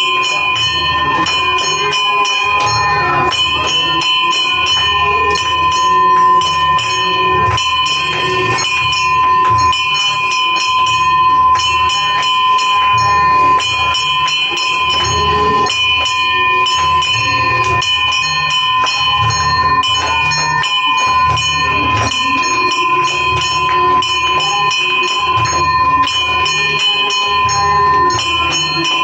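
Aarti bells ringing continuously, struck in a fast, even rhythm over a steady ringing tone, with a low pulsing beat underneath.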